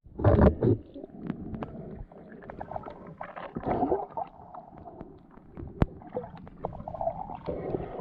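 Water sloshing and gurgling around a snorkeler, with irregular splashes and small clicks.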